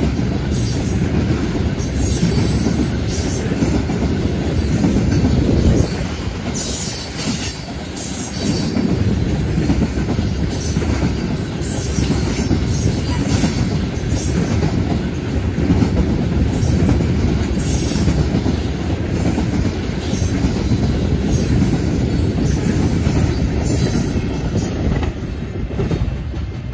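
Freight train of tank cars rolling past at close range: steady rumble and clatter of steel wheels on the rails, with several brief high-pitched wheel squeals. It eases off slightly near the end as the last car, a covered hopper, goes by.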